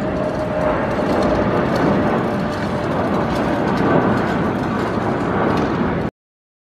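Boeing 787-8 jet engines running at takeoff power, a steady roar with a faint steady whine in it, cutting off abruptly about six seconds in.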